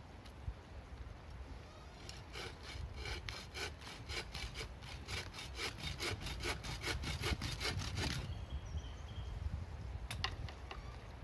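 Hand saw cutting through a wooden branch: quick, even back-and-forth strokes, about four a second, starting about two seconds in and stopping about eight seconds in. A single sharp knock follows near the end.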